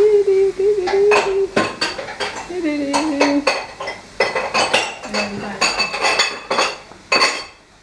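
Dog treats rattling in a hard plastic jar as it is shaken, a string of sharp clattering rattles, with a few short low-pitched vocal sounds in the first half.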